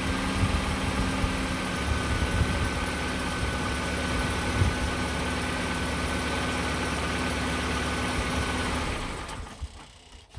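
Rover 820i's 2.0-litre four-cylinder petrol engine idling steadily on fresh oil after an oil change, then dying away as it is switched off near the end.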